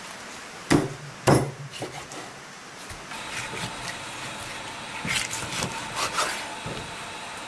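A large kitchen knife cutting raw chicken on a wooden cutting board: two hard chops of the blade into the board about a second in, then slicing and scraping through skin and joints with softer knocks of the blade on the wood.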